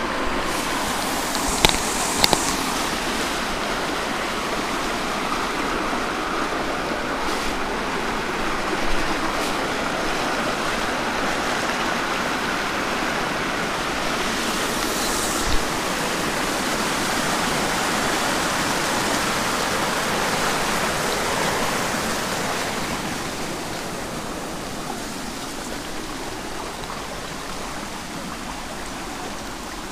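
Water rushing steadily down a narrow stream channel, with a few sharp knocks near the start. The rushing grows quieter over the last several seconds.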